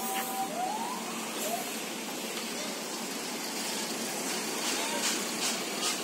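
Steady street and crowd noise around an idling tour bus, with a short horn-like tone at the start and a couple of rising glides about a second in, and a few sharp clicks near the end.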